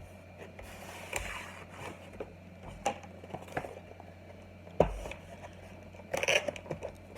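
A keyboard box and its packaging being handled on a table: scrapes and light clicks, one sharp thump just before five seconds in, and a short rustling burst about a second later.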